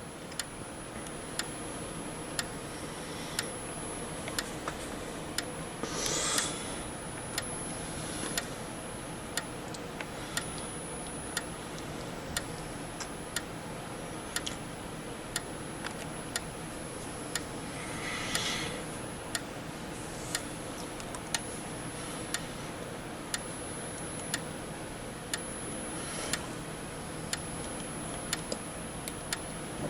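Gentex Commander 3 remote strobe (GES3-24WR) flashing, giving a sharp click about once a second over a faint steady high-pitched whine.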